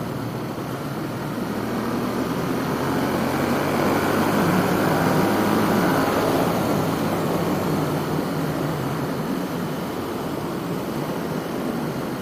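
Ducati Monster's V-twin engine on its stock exhaust running at highway speed, mixed with wind rushing over a helmet-mounted microphone. The sound grows louder for a few seconds in the middle, then eases back.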